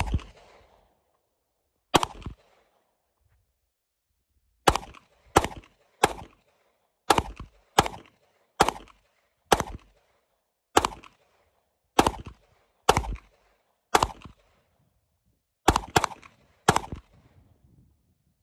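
Glock 45 9mm pistol firing about fifteen single shots, two seconds apart at first and then roughly one a second, each a sharp crack with a short echo.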